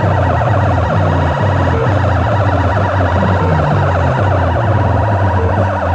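Loud music with a heavy, pulsing bass line blasted through banks of horn loudspeakers on a competition sound rig.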